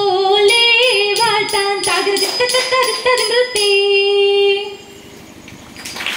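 Margamkali song sung by female voices, with long held notes; the singing stops about four and a half seconds in, leaving a much quieter stretch.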